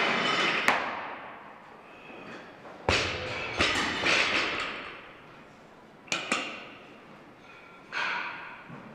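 Steel barbell loaded with rubber bumper plates knocking against the platform and clanking during snatch reps. The heaviest thud comes about three seconds in, with lighter clanks around six and eight seconds, each followed by a short metallic ring.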